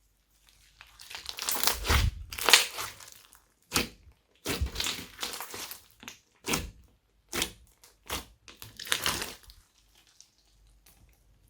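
Glossy slime being kneaded and pressed by hand: irregular short bursts of squishing and popping, loudest in the first few seconds and fading out near the end.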